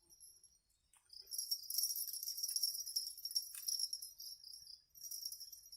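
Night insects, crickets or similar, chirping in a high, shrill trill that starts about a second in, breaks off briefly near the end and starts again.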